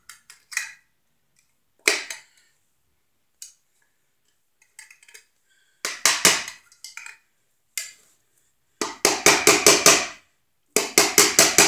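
Screwdriver and pliers tapping the locknut ring of an MC cable connector tight against a steel outlet box, metal clinking on metal. Scattered single taps come first, then quick runs of taps, about five a second, in the second half.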